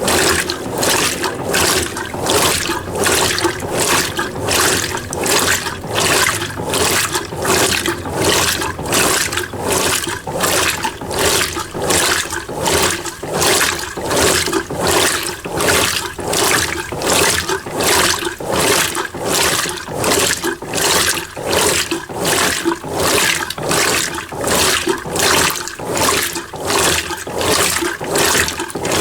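Mueller Energy 8 kg top-loading washing machine agitating a small load in low water: water sloshing in evenly spaced surges as the agitator swings back and forth.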